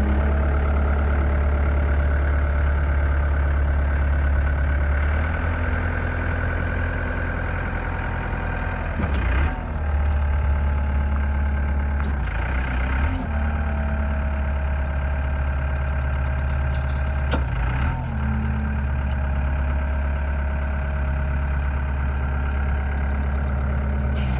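Gehl V330 skid steer's diesel engine running steadily, its note shifting briefly a few times, around ten, thirteen and eighteen seconds in.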